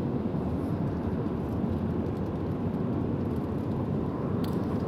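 Steady low rumble of an airliner cabin in flight, the drone of the engines and air flow. A few short clicks come near the end.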